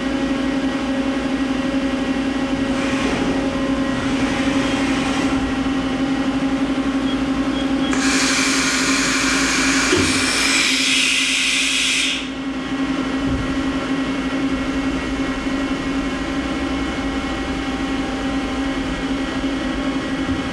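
Mori Seiki SL-403CMC CNC turning center running with a steady machine hum while the turret carriage traverses the Z axis to tow the tailstock. About eight seconds in, a louder hiss with a high whine lasts about four seconds and then cuts off.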